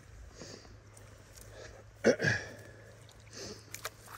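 A man breathing hard through his nose, with a short grunt of effort about two seconds in as he lifts a landing net holding a heavy trout out of the water.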